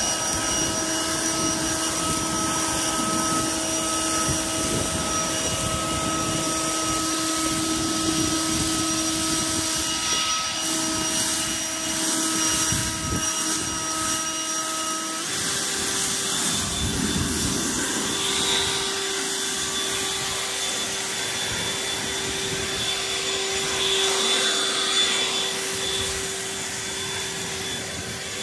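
A motor running steadily with a clear humming pitch, which steps up to a higher steady pitch about halfway through.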